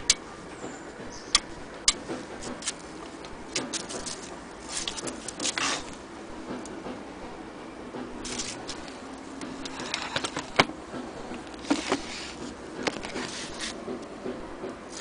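Scattered clicks, knocks and short scraping rattles from a Singer Featherweight 221 sewing machine being handled: its body and parts are moved and its bed is tipped open.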